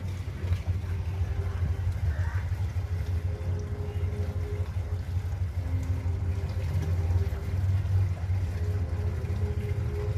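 A steady low rumble runs throughout, with a faint tone that comes and goes above it.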